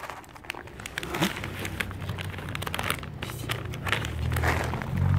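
Plastic packaging crinkling and rustling in irregular bursts, as a bag of dry cat food is handled.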